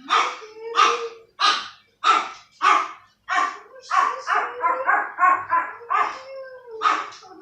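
A dog barking over and over, about two barks a second, with a quicker run of shorter barks near the middle.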